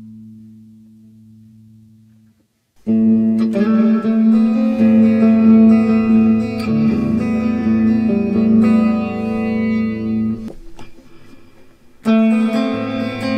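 Electric guitar played through an EarthQuaker Devices Afterneath V3 reverb pedal. A lingering reverb tail fades to silence. About three seconds in, notes ring out with a long wash of reverb, dying away around ten seconds in, and a new phrase starts near the end.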